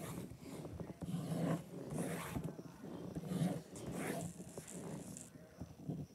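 Scribbling on paper with a drawing tool on the table right beside the phone: scratchy back-and-forth coloring strokes, about one stroke a second, with a low rumble carried through the tabletop.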